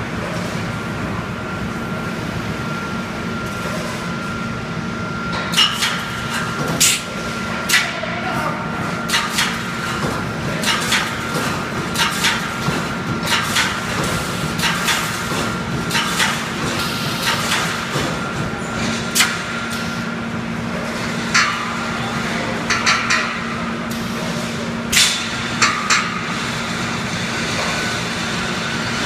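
Automatic wire mesh welding and bending machine running: a steady hum under sharp metallic clanks and clicks, irregular, about one a second, starting about five seconds in.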